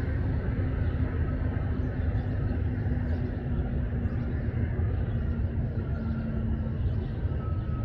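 Steady low outdoor rumble with a faint steady hum that stops near the end.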